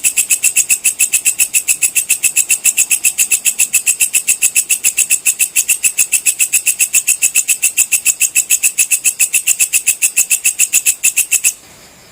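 Walang kecek (belalang kecek) insect singing: a fast, even train of shrill chirping pulses, about seven a second, that stops abruptly near the end.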